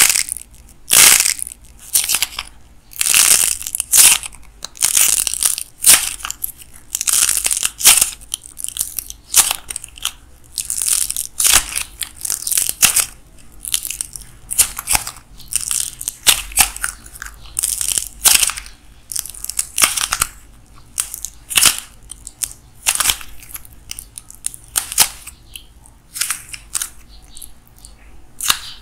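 Hands crushing and squeezing a watermelon-shaped clay model, its clay cracking and crunching in a long run of irregular crackling bursts, one or two a second.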